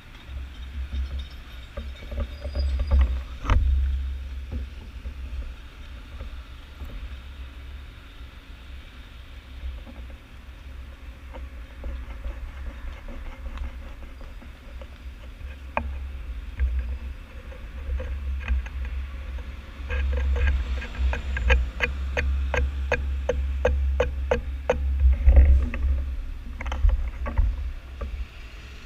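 Low rumble of a moving vehicle, with a quick run of sharp, regular clicks about two-thirds of the way in.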